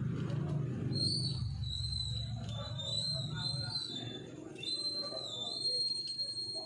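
High, warbling whistled notes in a run of short gliding phrases, starting about a second in, over a low steady hum that fades out about four seconds in.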